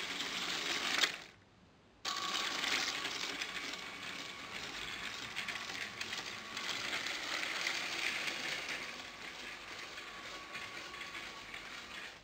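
Motorised Lego train running on plastic track: a steady motor whine over the clatter of its wheels and gears. The sound cuts out briefly about a second in, then runs on.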